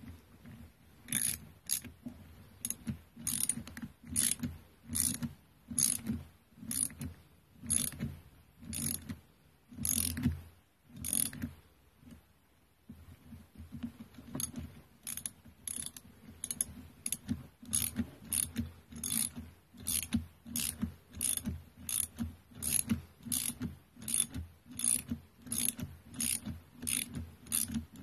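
Ratchet wrench tightening bolts on a strimmer engine: a long run of sharp, evenly spaced clicks as the handle swings back and forth. There is a pause of about two seconds near the middle, then the clicks come quicker, about two a second.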